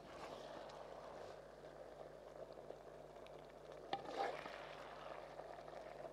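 Faint, steady frying or simmering from food cooking in a pot on the stove, with a light utensil knock and clatter about four seconds in.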